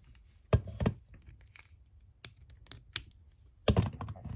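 Plastic action figure (a Mattel WWE Elite figure) being handled and posed: a scatter of light clicks and taps, the loudest cluster near the end as its feet are set onto a clear plastic stand.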